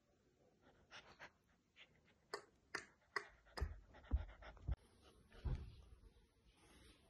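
Bernese mountain dog puppy panting faintly in short, quick breaths, about two or three a second, followed by a few dull thumps about halfway through.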